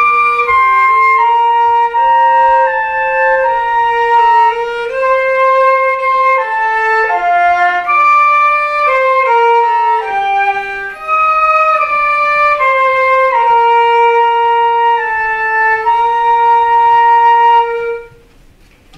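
Flute and erhu playing a slow melody together in long held notes; the piece ends on a held note about a second before the end.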